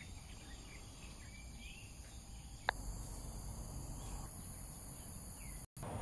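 Steady high-pitched insect drone over a low outdoor rumble, with a few faint short bird chirps in the first half and a single sharp click about two and a half seconds in.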